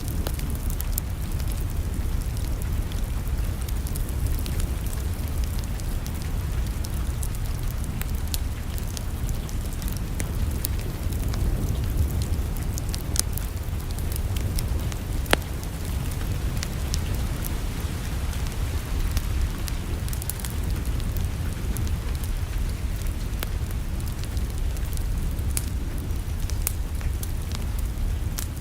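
Wood fire crackling in a fireplace: scattered sharp pops and snaps over a steady low rumble, with one louder pop about halfway through.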